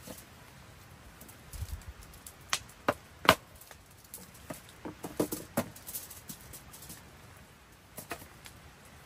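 A series of irregular sharp knocks and clicks, the loudest about three seconds in and another cluster a couple of seconds later, over a steady background hiss.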